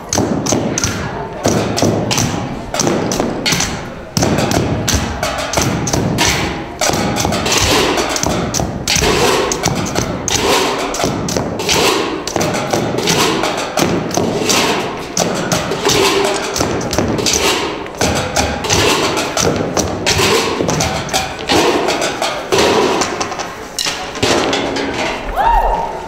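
Loud, rhythmic thumps and taps from a group of boys dancing, with music faint underneath. Voices start to whoop near the very end.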